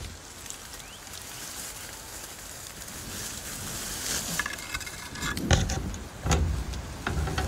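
Handling noise from a camera being moved through dry brush: twigs rustling and ticking against it, with a short high-pitched call about four seconds in. From about five seconds in, loud muffled thumps and wind buffeting on the microphone.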